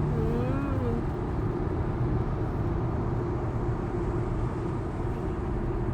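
Steady road and tyre noise inside the cabin of a moving Tesla electric car, with no engine sound. A brief gliding hum, like a short vocal sound, comes in the first second.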